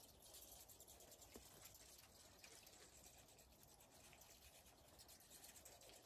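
Faint squeaking of bats coming out for the night: a scatter of tiny high ticks and squeaks over near silence.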